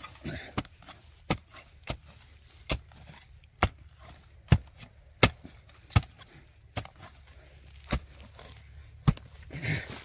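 A wooden-handled hoe striking into soil again and again, digging a hole: sharp thuds of the blade biting the earth, about one a second.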